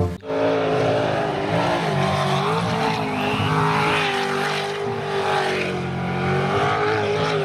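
Racing jet boat's engine running hard at speed, a steady engine note whose pitch wavers slightly up and down.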